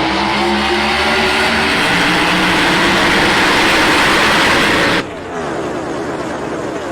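NASCAR stock cars' V8 engines at racing speed, loud and sustained. About five seconds in the sound drops abruptly to a quieter pass whose engine pitch slides down.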